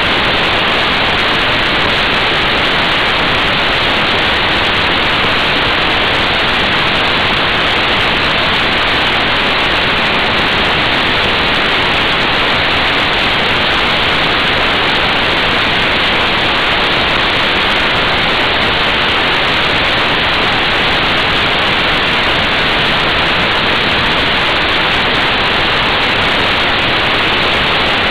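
Steady, loud rushing wind noise over the motorcycle-mounted camera's microphone at motorway speed, with no engine note standing out above it.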